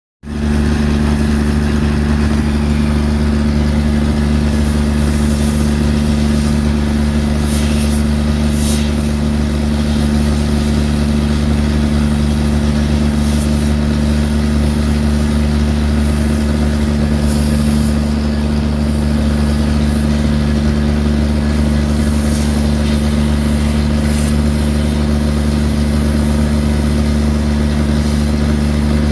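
Excavator's diesel engine running at a steady pitch with a low hum, with a few faint, brief scrapes or clanks over it.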